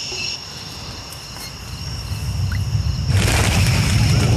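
Crickets chirp at first, then a deep rumble swells, the sound of the volcano stirring. About three seconds in, a loud rush of noise joins the rumble as a flock of birds takes flight.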